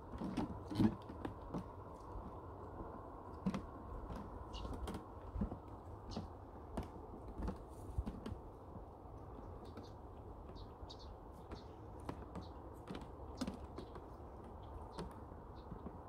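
Footsteps on a wooden boardwalk: irregular clicks and soft thumps of shoes on the planks, busiest in the first half, over a steady low hiss of light breeze.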